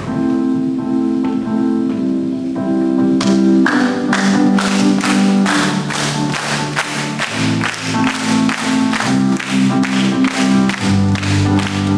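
Live worship band starting a song: sustained keyboard chords alone at first, then a steady beat comes in about four seconds in and the full band plays on.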